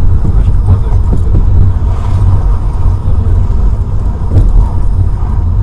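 Car on the move: a loud, steady low rumble of engine and road noise.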